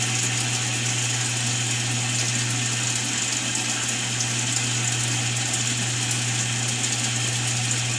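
Top-loading washing machine running just after being started, a steady low hum with an even hiss over it.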